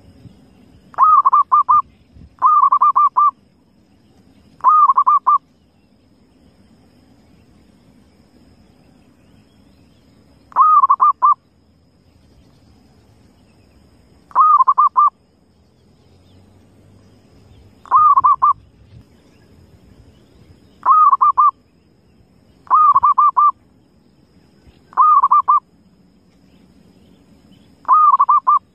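Wild zebra dove (perkutut) cooing: about ten short calls, each a quick run of pulsed coo notes, repeated every few seconds at uneven gaps.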